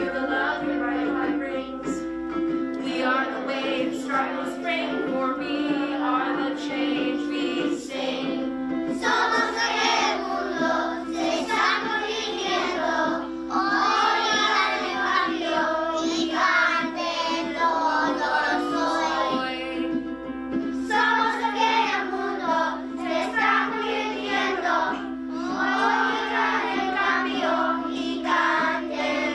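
A group of children singing together over a steady musical accompaniment of held notes.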